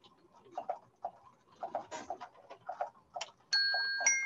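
Animated toy xylophone switched on: its mechanism clicks and ticks unevenly for about three seconds. Then two ringing metal-bar notes sound near the end as it starts to play.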